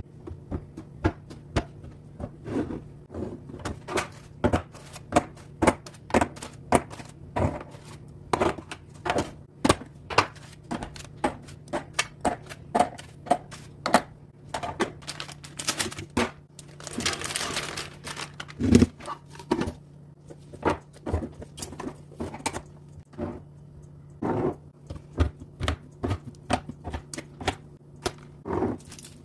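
Quick, irregular clicks and knocks of snack packets and plastic containers being handled and set down while restocking, with a brief rustling hiss about seventeen seconds in.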